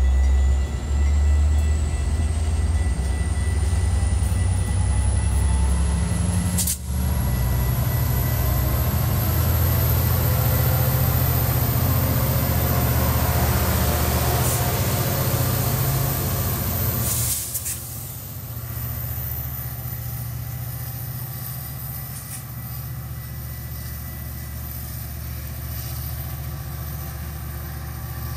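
Metra diesel commuter train rolling past: a loud low diesel locomotive rumble that swells as the locomotive passes, with a thin high whine rising in pitch over the first ten seconds. About 17 s in the sound drops suddenly to a quieter, steady train rumble.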